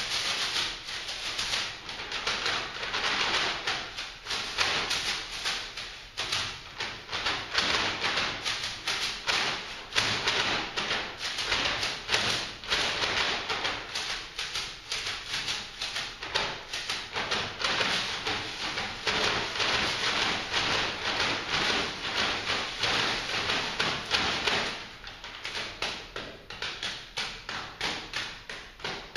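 Brown paper bags played as percussion by a quartet: dense, rhythmic crinkling, rustling and tapping of the paper in crisp strokes. The strokes thin out and soften a little near the end.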